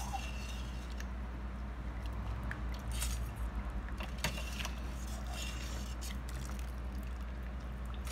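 A steady low hum under a few faint metal clinks and knocks from a stainless steel strainer basket of cooked shrimp being moved in its pot of broth.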